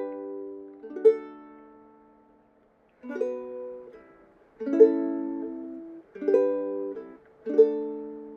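Ukulele playing a slow chord intro through Bm, A, G and D: about six single strums, each chord left to ring and fade before the next.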